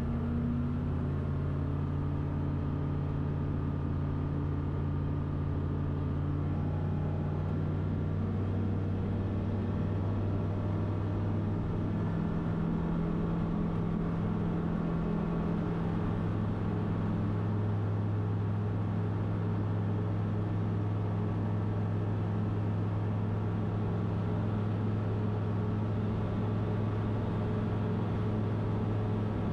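Steady drone of a Van's RV-12's Rotax 912 flat-four engine and propeller in flight, heard inside the cockpit. About ten to twelve seconds in, its tone shifts slightly.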